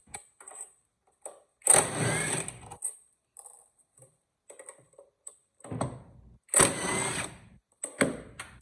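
Cordless power tool with a 10 mm socket running in short bursts to back out the throttle body bolts: two loud runs of about a second each, with shorter runs and small clicks of the tool and bolts in between.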